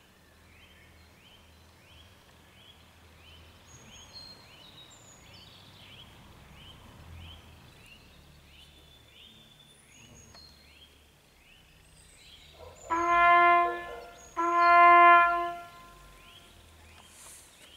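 Trumpet sounding two loud held notes at the same pitch, with a short break between them; the second is a little longer.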